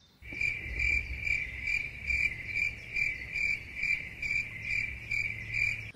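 A steady series of high-pitched chirps, about two a second, over a low background rumble. It starts suddenly just after the beginning and stops suddenly at the end.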